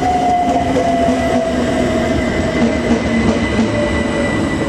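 c2c Class 357 electric multiple unit running through the station. Its motor whine falls steadily in pitch over a continuous rumble.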